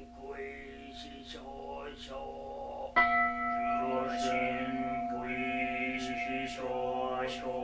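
Zen liturgical chanting: voices intoning on one steady pitch, syllable by syllable. About three seconds in, a bell is struck once and rings on under the chant.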